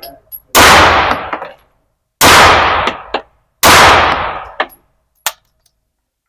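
KRISS Vector firing three single shots about a second and a half apart, each with a long echoing tail, followed by two light metallic clinks.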